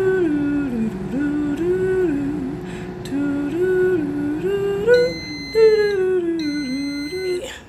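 A woman humming a tune to herself. About five seconds in, the air fryer beeps twice with long, steady tones as its cooking timer runs out.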